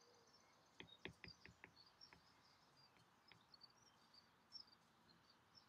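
Near silence, broken by a quick run of faint taps about a second in and a couple more later: a stylus tapping on a tablet screen while writing. Faint bird chirps can be heard in the background.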